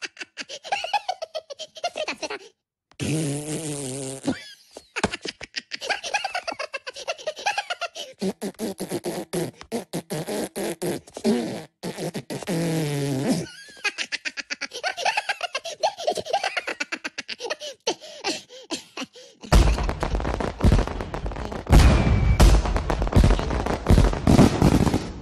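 Cartoon Minion characters babbling, laughing and making fart noises. About twenty seconds in, loud crackling fireworks take over.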